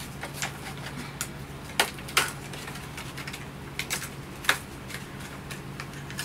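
Hot Wheels blister pack being torn open by hand: the clear plastic bubble crackles and clicks irregularly as it is peeled off the cardboard card, with sharper snaps about two seconds in and again about four and a half seconds in.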